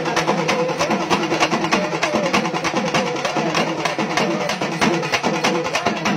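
Procession drum ensemble playing fast, dense strokes without a break, with a wavering pitched tone over the drumming.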